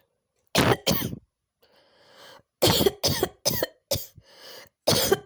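A person in a coughing fit: two coughs, a short breath, a run of five quick coughs, another breath, then more coughs near the end.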